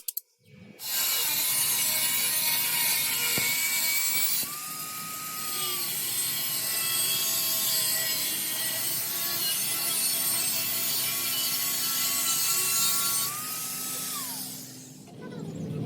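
A motor-driven workshop tool running steadily with a hissing, scraping noise over a whine. The whine steps up in pitch twice, then falls away as the tool winds down shortly before the end.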